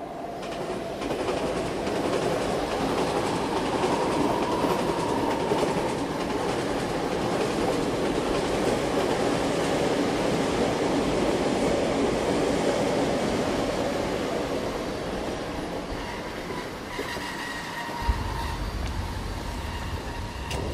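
A train running past on its rails, a dense steady rumble that builds over the first couple of seconds and eases off in the last few. A deeper low rumble comes in near the end.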